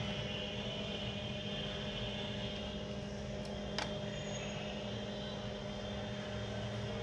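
Steady mechanical hum with a few constant tones, like a motor or fan running, and one light click about four seconds in, like a small part being set down on the bench.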